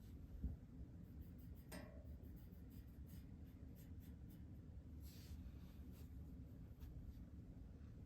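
Near silence: faint, soft rubbing of a fingertip working gold wax onto cast iron lettering, over a low steady room rumble, with a soft thump about half a second in.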